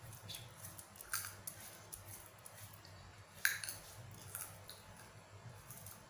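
Quiet room with a handful of faint, sharp clicks and light rustles from moving hands and beaded bracelets, spaced irregularly a second or two apart.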